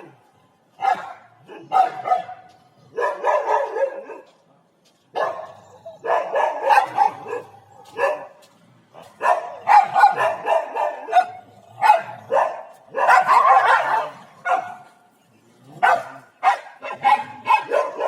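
A dog barking over and over in bursts of half a second to two seconds, some of them drawn out, with short gaps between.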